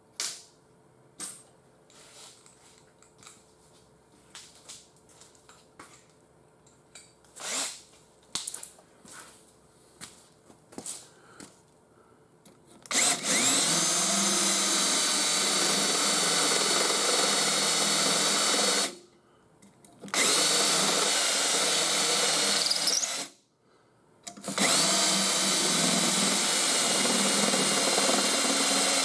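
A handheld power tool works on rusted car sheet metal in three long runs of several seconds each, a steady whine. Before it come scattered light clanks and taps.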